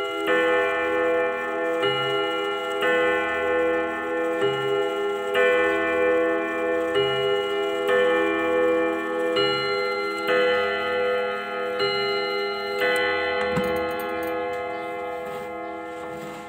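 ODO 62 Westminster wall clock striking the hour on its rod gongs: each blow is a two-note ding-dong from a pair of hammers, the pairs coming about every two and a half seconds. The strikes stop about three-quarters of the way through and the rods ring on, fading.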